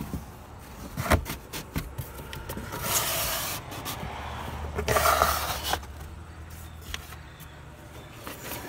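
A corrugated cardboard shipping box being opened by hand, its flaps and contents scraping and rubbing, with a sharp knock about a second in and two longer scraping rushes about three and five seconds in.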